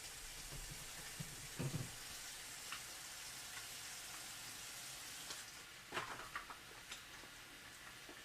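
A steady hiss with a few crackles and soft knocks, about two seconds in and again about six seconds in.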